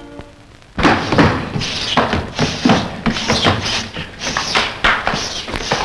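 A dog barking rapidly and repeatedly, starting suddenly about a second in.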